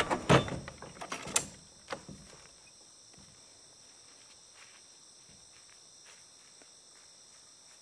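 Wooden sliding barn doors knocking shut, then several metal clicks and knocks from the door latch over the next two seconds. After that only faint, steady, high-pitched insect chirring remains.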